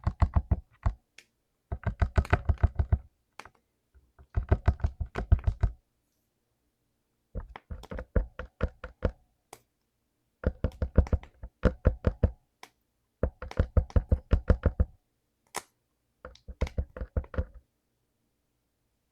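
Mechanical keyboard with clicky blue switches being pressed in quick runs of keystrokes, each run about a second or so long, with short pauses between; the runs stop near the end.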